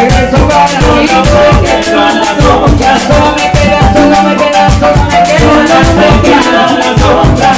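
Live salsa band playing: a woman sings over Latin percussion, with a güiro and electric bass, the drum strokes keeping a steady driving beat.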